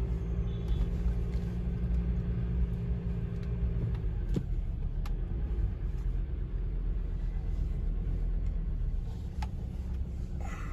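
Car engine and road rumble heard from inside the cabin while the car creeps along in slow traffic. A steady hum stops about four seconds in, and a few faint clicks come later.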